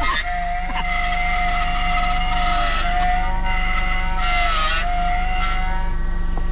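Key-cutting machine's small electric motor whining at a steady pitch, dipping briefly a few times as if loaded by the cut, over a constant low hum.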